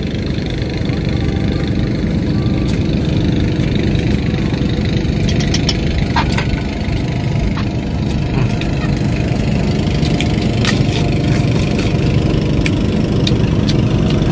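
A loud, steady engine-like low rumble, like a motor idling, with a few small sharp clicks about five seconds in and again near eleven seconds.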